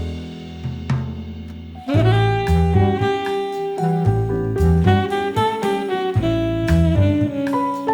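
Jazz background music: a saxophone melody over bass and drums, the melody coming in about two seconds in.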